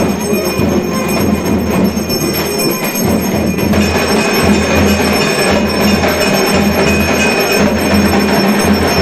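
Temple bells ringing continuously for the arati, a loud, dense metallic din with steady ringing tones.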